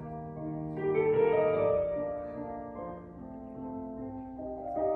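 Soft instrumental background music of sustained keyboard notes, swelling about a second in and again near the end.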